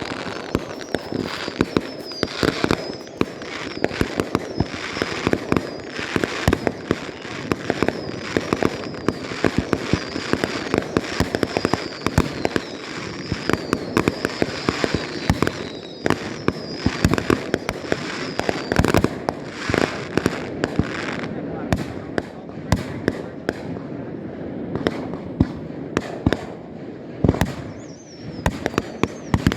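Fireworks display: rapid crackling bangs and pops in quick succession throughout, with a high whistle that slowly drops in pitch through the first half and returns briefly near the end.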